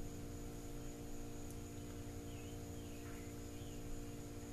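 Quiet workshop room tone dominated by a steady electrical mains hum with a thin high whine over it, and a few faint chirps around the middle.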